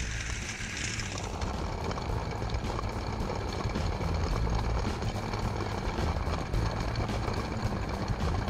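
LEGO train running along plastic track, heard from a camera riding on the train: a steady mechanical rumble of motor and wheels with faint fine clicking.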